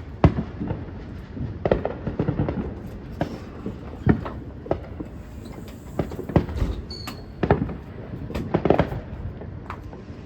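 Fireworks going off in irregular succession: a string of sharp bangs and pops of varying loudness, some followed by a brief echo.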